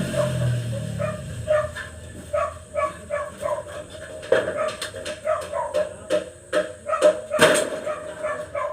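A dog barking and yipping over and over, with two sharp knocks, the second near the end the loudest.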